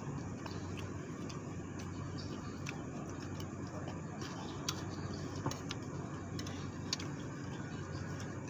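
Steady low background rumble, with scattered short clicks of a metal spoon against a ceramic plate during eating.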